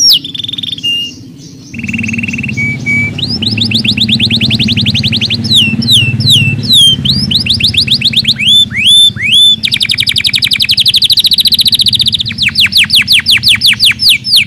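Domestic canary singing a long, loud song. It alternates runs of fast repeated sweeping notes with rapid rolling trills and a few short held tones.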